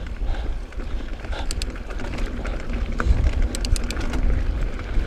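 Mountain bike (Santa Cruz Bronson) rolling along a dirt singletrack: steady low rumble of wind buffeting the camera microphone and tyres on the trail, with two short runs of rapid ticking about a second and a half in and again near three and a half seconds.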